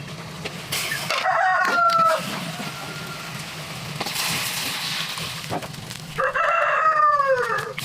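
Rooster crowing twice: a short crow about a second in and a longer one near the end that falls in pitch as it ends. A rustling noise comes between the crows.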